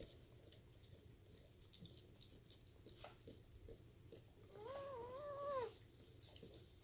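A newborn German Shepherd puppy crying once, a wavering high-pitched whine of a little over a second, about two-thirds of the way in, over faint small clicks.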